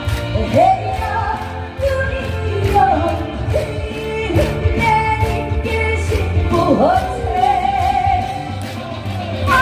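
A song sung live with vibrato and pitch slides over a backing track with a steady beat and bass.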